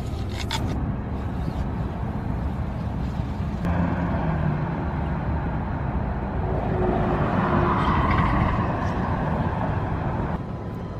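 A crisp crunch of a bite into an apple at the start, over a steady low rumble of car and street noise. About four seconds in, the noise turns brighter and hissier.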